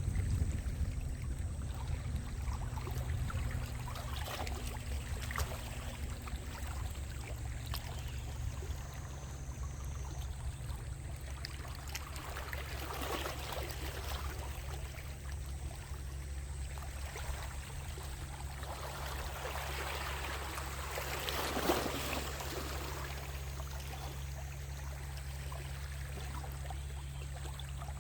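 Sea waves washing in and out against a rocky shore. The surf swells and ebbs several times over a steady low rumble, with the biggest wash about three quarters of the way through.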